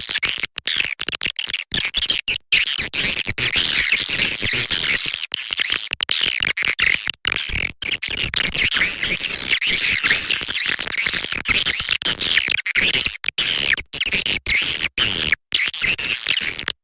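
Swiftlet lure call: a dense chorus of edible-nest swiftlet chirps and twitters, high-pitched and continuous, cut through by frequent abrupt silent gaps where the recording has been edited.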